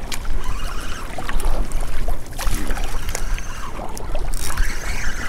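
Small waves lapping and splashing against a plastic kayak hull, with wind rumbling on the microphone.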